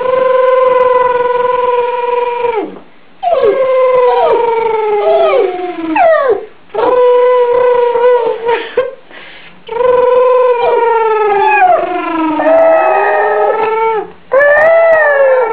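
Yorkshire terrier howling in a run of about five long howls with short breaks between them. The first howl holds a steady pitch; later ones slide down in pitch and waver.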